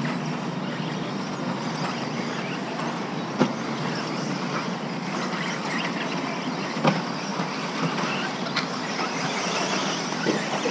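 Electric RC buggies racing on an Astroturf track: a steady hum of motors and tyres, with three sharp knocks spread through it.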